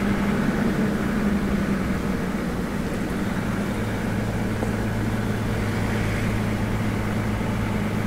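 Toyota Land Cruiser 60 Series driving at a steady cruise, its engine and road noise heard from inside the cabin as a steady hum. A lower hum joins about four seconds in.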